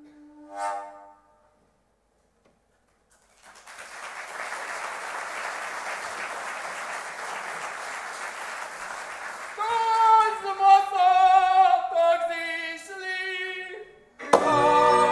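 A short note under a second in, then about six seconds of steady applause. From about ten seconds in, a lone woman's voice sings a folk melody, and near the end a string band of fiddles comes in loudly.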